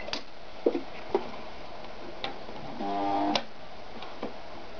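Ideal 730 sewing machine being worked on leather: a series of sharp mechanical clicks and knocks, with a short run of the machine lasting about half a second, rising in level, about three seconds in and ending in a click.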